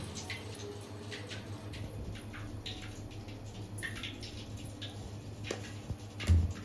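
Quiet handling sounds while a spiced chicken-mince mixture is being prepared: a few light taps and clicks over a steady low hum, with a louder knock near the end.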